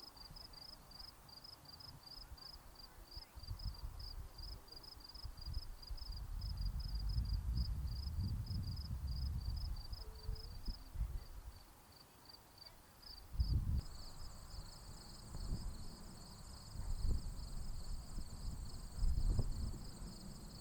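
Insects chirping in a steady high pulse about three or four times a second, with a second, higher insect buzz joining about two-thirds of the way through. Under it a low rumble comes and goes and is the loudest sound.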